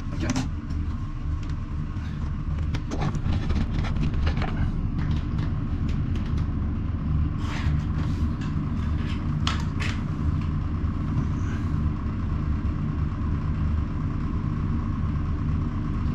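Steady low rumble, with a few short knocks and rubs as plastic and rubber toilet pan-connector fittings are handled.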